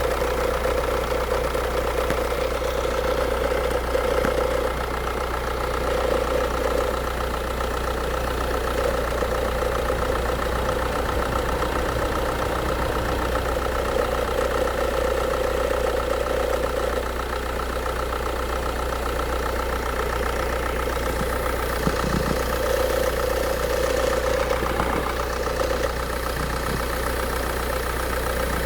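Fiat Stilo 1.9 JTD diesel idling with its air-conditioning compressor running noisily, a mid-pitched drone that swells and fades every few seconds over the steady engine hum. The owner takes the noise and vibration for a collapsed bearing sleeve in the compressor.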